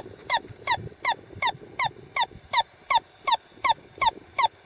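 Handheld radio locator receiver beeping steadily, about three short, slightly falling beeps a second, as it picks up the beeper on the ice-net jigger under the ice.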